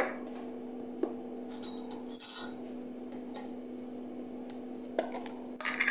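Metal spoon clinking and scraping against a small ceramic bowl as yogurt is scooped in from a plastic tub, with a few brief rustles about two seconds in and sharper clinks near the end. A steady low hum runs underneath.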